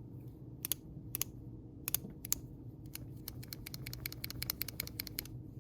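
Small metal clicks and snaps of a Leatherman OHT multitool being handled and worked by hand: a few separate clicks, then a quick run of light clicks in the second half.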